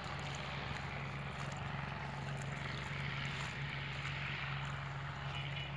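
A steady low motor hum under an even hiss, holding at one pitch and level throughout.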